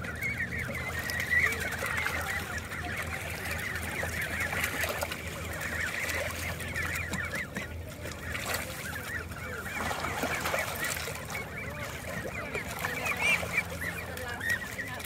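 A flock of ducks and ducklings calling, many short overlapping calls with no break.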